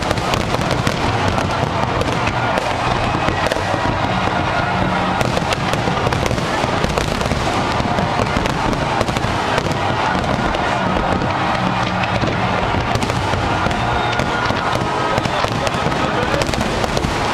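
Fireworks display bursting continuously in a dense run of bangs and crackling, with no break, and music playing underneath.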